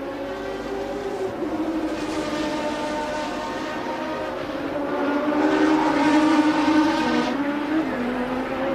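Late-1980s Formula One car engines running, with the engine note rising and falling. It swells loudest about five seconds in, then drops off suddenly a little after seven seconds.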